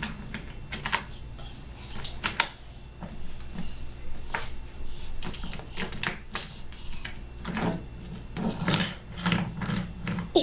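Wooden toy train cars and track pieces clicking and knocking together as they are handled, in irregular clacks.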